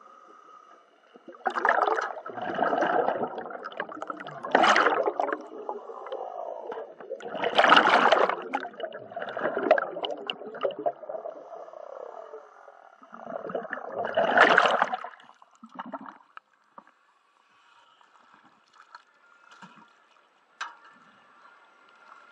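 Scuba diver's exhaled breath bubbling out of the regulator underwater, in four or five gurgling bursts a few seconds apart, then much quieter for the last several seconds.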